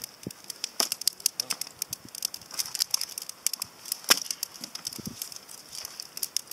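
Wood campfire crackling, with irregular sharp snaps and pops and one louder pop about four seconds in.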